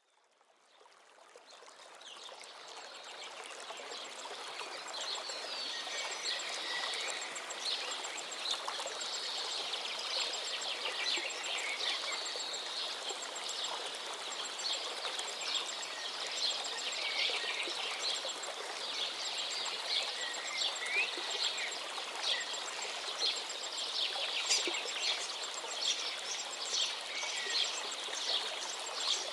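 Several birds chirping and singing over the steady rush of a flowing stream, fading in over the first few seconds.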